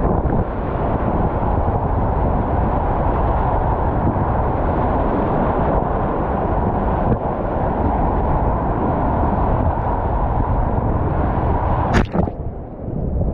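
Whitewater rapids at high flow rushing and churning loudly around a kayak, in a steady roar. About twelve seconds in there is a sharp splash, and the sound goes briefly muffled and quieter as the camera is plunged into the water.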